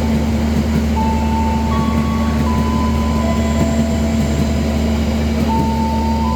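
A passenger train running, with the steady low rumble and hum of the moving carriage. Faint high tones shift in pitch in steps every second or so.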